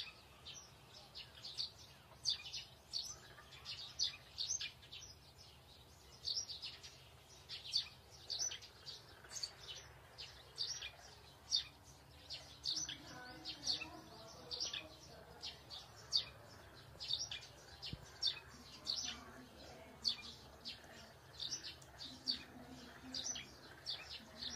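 Small birds chirping in a steady morning chorus: short, high chirps about two a second.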